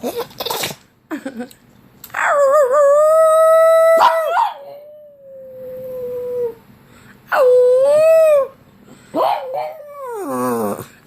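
A pug howling: three long, held howls with pauses between, the last one sliding down in pitch. A few short, noisy sounds come in the first second or so.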